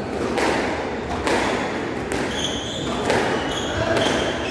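A squash rally: a rubber squash ball is struck by rackets and smacks off the walls every second or so, with short high squeaks of court shoes on the wooden floor and the echo of a large hall.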